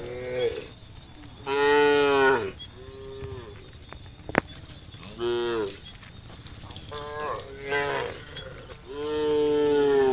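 Several cows mooing in turn, about seven calls of varying length, with two long loud moos about 2 seconds in and near the end. A single sharp click about four seconds in.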